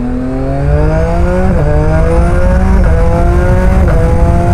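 Yamaha MT-09's inline-three engine, fitted with a full aftermarket exhaust, accelerating hard. Its pitch climbs steadily and drops briefly at each of three quick upshifts, about a second apart, then climbs again.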